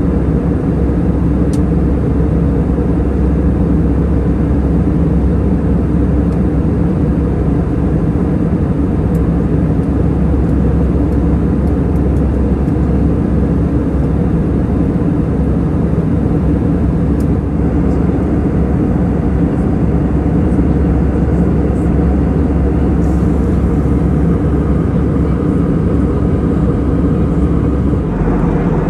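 Steady cabin drone of an Airbus A319 in flight, from its CFM56 turbofans and the air rushing past the fuselage, heard from a seat inside the cabin. The drone is deep and even, with a small shift in its low rumble near the end.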